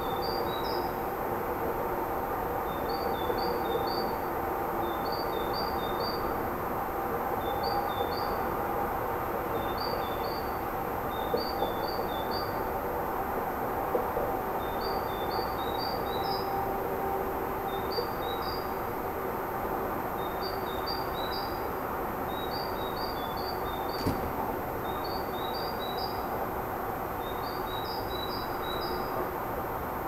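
A small songbird singing, repeating a short phrase of three to five high chirps that alternate between two pitches, about once every one to two seconds. Under it runs a steady low hum, and one sharp tick comes near the end.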